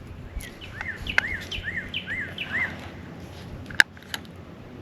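A songbird singing a series of about six rising-and-falling notes, roughly two a second, followed about a second later by a single sharp click.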